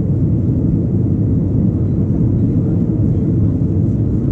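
Airbus A320 cabin noise in the climb after take-off: the jet engines and airflow heard through the fuselage as a steady, low rumble with no breaks.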